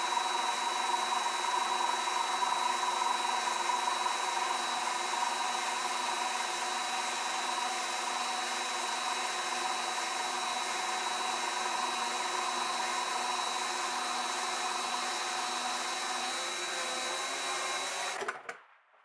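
Mini metal lathe running fast with a steady motor whine while turning down a bronze rod. It is switched off about a second before the end and the whine stops abruptly.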